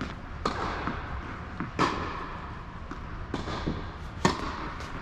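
Tennis balls being struck and bouncing: several sharp knocks a second or so apart, each with a short echo off the hall. The loudest is a serve struck about four seconds in.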